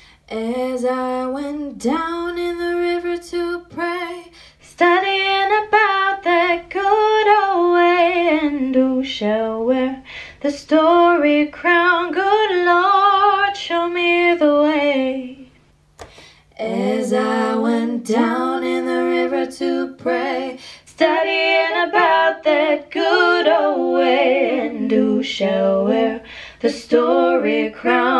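A woman singing an improvised melody into a handheld microphone in long phrases, with a short break about halfway through. A faint steady low hum runs underneath.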